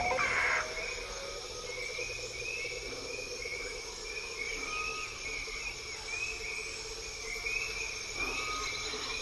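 Forest-moon ambience: a steady chorus of small creatures chirping, about two chirps a second, over a low steady hum.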